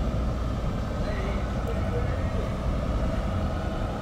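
Diesel engine of a loaded car-carrier truck running with a steady low rumble, ready to pull out.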